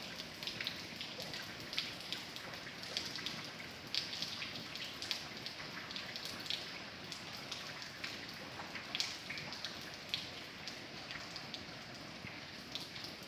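Steady rain with individual drops pattering and ticking on a surface, sharp drop hits scattered irregularly over an even hiss.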